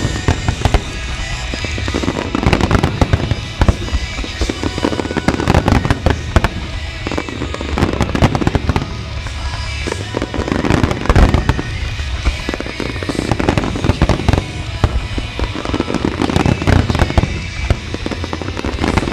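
A dense, unbroken barrage of fireworks shells bursting and crackling, with music playing along underneath.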